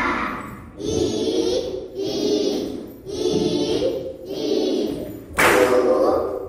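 Kannada vowel song (a, aa, i, ii) sung by a group of children's voices, in short sung phrases about a second apart.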